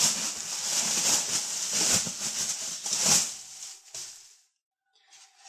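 Plastic packing wrap rustling and crinkling as it is pulled off a computer power supply, dying away about three and a half seconds in.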